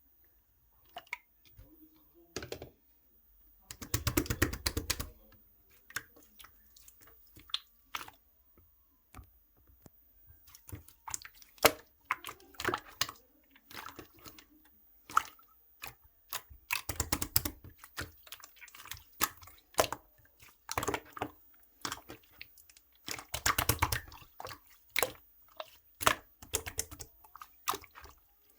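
Yellow opaque slime being squished and pressed by hand, making irregular wet clicks and pops, with longer runs of squelching about 4 seconds in, around 17 seconds and around 23 seconds.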